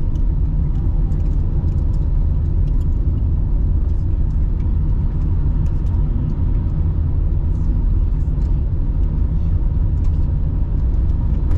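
Inside a car's cabin while driving at about 40 km/h on a wet road: a steady low rumble of engine and tyres, with scattered light ticks of raindrops striking the windshield.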